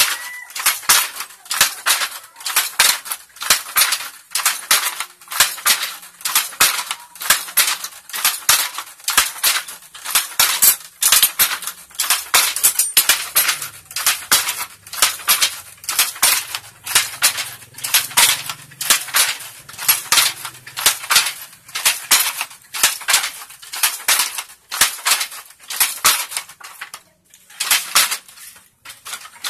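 Wooden handloom weaving: a steady rhythm of sharp clacks, about two a second, as the batten beats in each weft and the shuttle is thrown, with a brief pause near the end.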